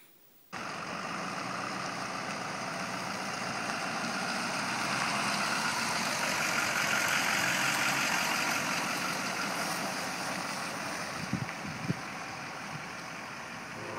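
Ford F-250 pickup truck driving past and pulling away, its engine and road noise growing louder and then fading off. A few short clicks come near the end.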